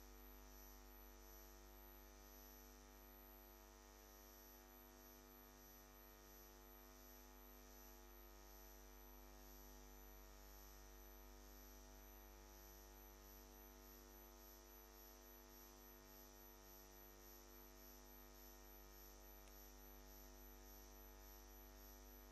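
Near silence: a faint, steady electrical hum with many evenly spaced tones and no other event.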